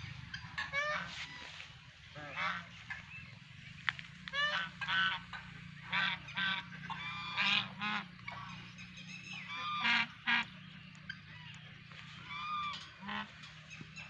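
Domestic white geese honking: many short honks, some single and some in quick runs, at irregular intervals.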